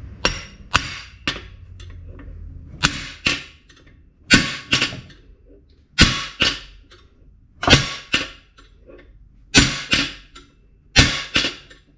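Hammer blows on a cam bearing driver bar, driving a new cam bearing into its bore in an LS V8 engine block. The blows are sharp metallic taps in pairs and triples, a cluster about every second and a half. The bearing is almost in place but not yet seated.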